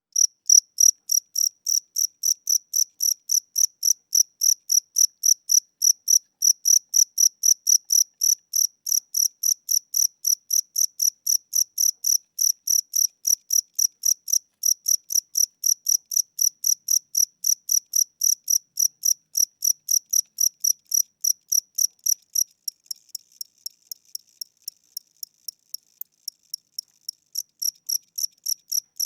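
A single cricket chirping in a slow, steady rhythm of about three short high chirps a second. For a few seconds past the middle the chirps turn much weaker, then come back to full strength near the end. The slow tempo is taken by the owner as a sign that the cricket is tired or old, its wings getting weak.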